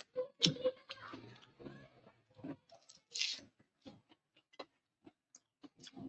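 Close-up eating sounds: chewing and wet mouth smacks with small clicks, and a short hiss about three seconds in.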